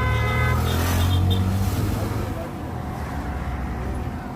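Car engine and road noise, a steady low rumble that is loudest in the first two seconds, with a vehicle horn tooting briefly at the start.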